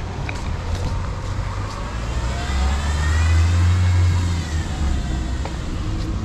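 A car driving past on the street. Its engine and tyre noise grows to a peak about three to four seconds in and then fades away.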